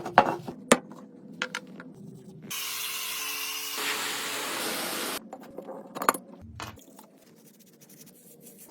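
A few sharp metallic knocks and clinks, then a steady spraying hiss for about three seconds, then two more knocks.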